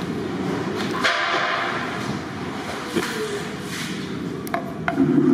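Steady rumbling background din of a working kitchen, with a few sharp knocks in the second half.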